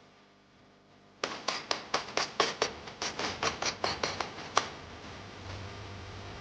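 Kitchen knife chopping on a cutting board: a quick, even run of about fifteen sharp knocks, roughly four a second, starting about a second in and stopping near the middle.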